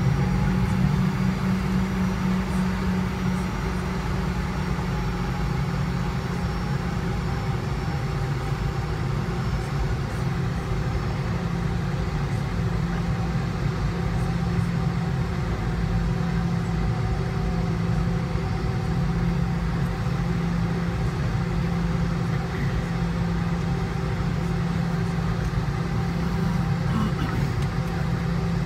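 Steady cabin drone of a Boeing 717 taxiing with its Rolls-Royce BR715 engines at idle: an even low hum with a few faint steady tones above it.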